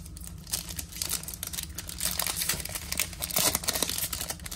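Wrapper of a Topps baseball card pack crinkling in irregular rustles as hands open it and pull the cards out.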